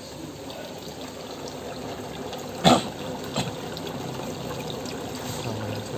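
Steady pouring and trickling of water in a saltwater aquarium sump around a protein skimmer. A loud sharp knock comes a little before the middle, and a smaller one just after it.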